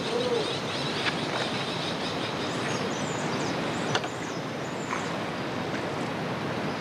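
Steady rushing of river water, with a few sharp knocks.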